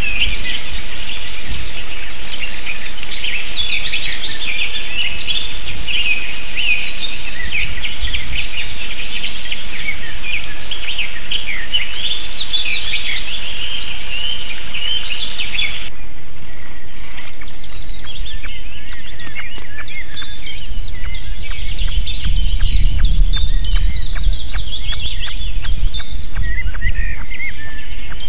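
Dense chorus of small songbirds chirping and trilling over a steady hiss. About halfway through the sound changes abruptly to a thinner chorus with a fast run of faint clicks, and a low rumble swells near the end.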